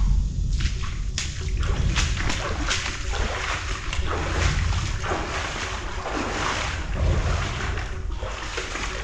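Footsteps wading through shallow water, with a splash at each step at a steady walking pace.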